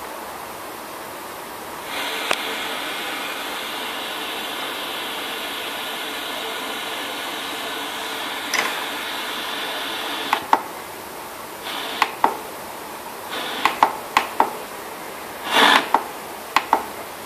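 FM radio static hissing from the iDance Energy XD2 speaker system between stations, louder from about two seconds in. From about ten seconds in the hiss drops and sharp clicks come, mostly in pairs, as the radio is tuned up step by step with the tune buttons.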